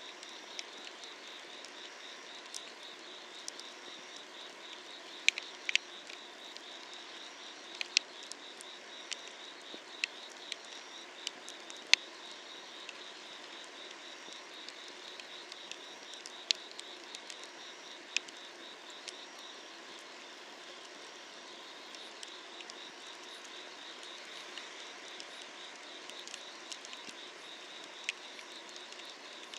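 Firewood burning under an iron cauldron, crackling with sharp irregular pops every second or few, over the steady, rapidly pulsing trill of night insects.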